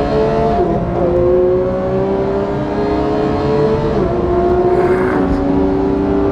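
Porsche 991 GT3's naturally aspirated flat-six engine heard from inside the cabin, pulling hard at high revs with its pitch climbing steadily, broken by two quick upshifts, about a second in and about four seconds in.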